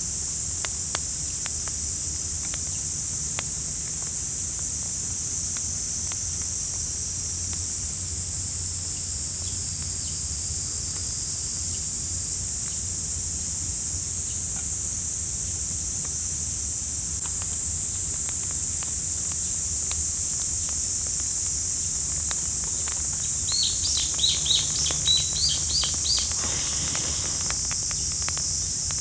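Summer insects droning steadily at a high pitch, with scattered faint clicks. Near the end a bird gives a quick series of about seven chirps.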